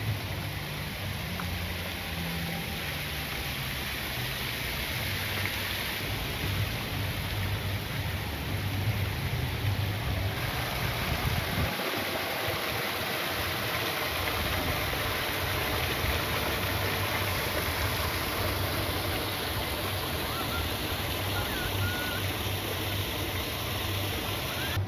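Fountain water cascading down a stepped pyramid basin and splashing into the pool: a steady rushing splash.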